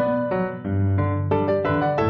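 Instrumental background music: a melody of short notes changing several times a second.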